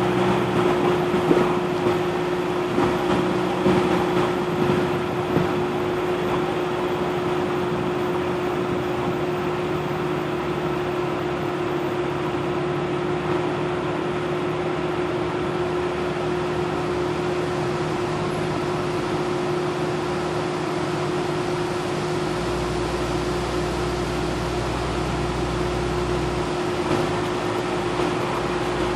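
Off-road vehicle driving slowly over a rough dirt trail, heard from inside the cab: a steady engine and drivetrain drone with a constant whine, and a few knocks from bumps in the first few seconds. A deeper rumble joins about three-quarters of the way through.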